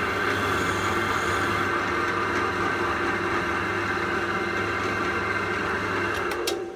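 Pillar drill running a wire cup brush, with the cast-iron spokeshave body held against it, scrubbing off old paint and rust: a steady motor hum under a hissing whir. A couple of clicks come near the end and the sound then cuts off.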